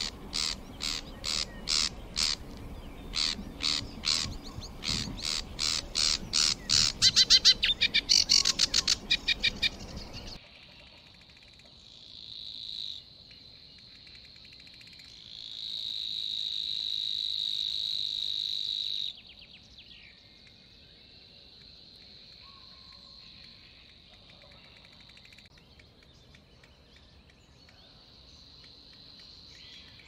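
Sedge warbler song: a run of separate harsh notes that come faster and faster, ending in a rapid rattle about ten seconds in. Then a Savi's warbler reeling: a steady, high, unbroken trill, loudest in a long stretch past the middle and fainter toward the end.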